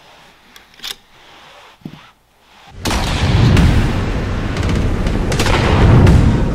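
A couple of soft clicks, then, about three seconds in, a sudden loud boom that carries on as a sustained low rumble: the sound effect of an animated bullet in flight.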